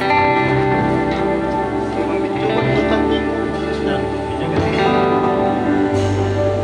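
Live worship band playing a song, with electric bass, keyboard and drums; the music swells in sharply right at the start.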